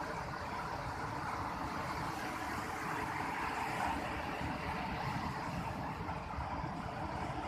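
Steady rushing noise of surf breaking on a sandy beach, swelling slightly a few seconds in.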